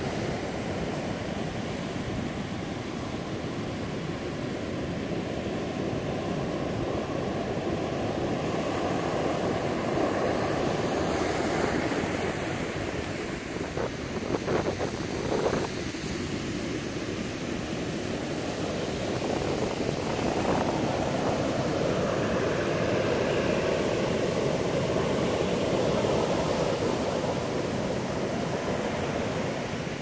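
Ocean surf breaking and washing up a sandy beach: a steady rushing that swells and eases with the waves. A few brief knocks come about halfway through.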